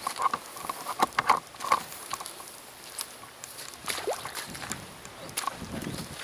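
Footsteps and clothing rustle of someone walking on a wet, muddy track: irregular soft clicks and rustles, busiest in the first second or so.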